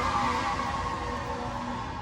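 A fire truck siren passing outside, heard as sustained steady tones that slowly fade.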